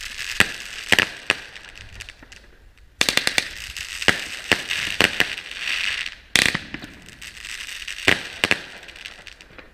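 Fireworks going off: a string of sharp bangs from bursting rockets and shells, with a sudden spell of rapid crackling about three seconds in and one especially loud bang a little past the middle.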